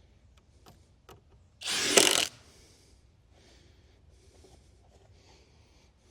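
A power tool runs in one short burst of under a second, about a third of the way in. Light clicks and handling sounds come before and after it.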